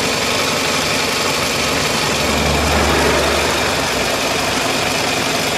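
Twin electric radiator cooling fans of a 2000 Toyota Camry running on high speed, a steady rushing whir over the four-cylinder engine idling, then shutting off together as the coolant temperature sensor reads the coolant cool enough. A low hum sounds briefly about two seconds in.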